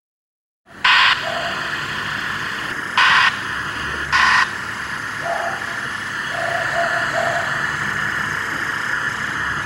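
Radio-style static hiss that starts abruptly out of silence, with three short louder bursts of static about a second, three seconds and four seconds in.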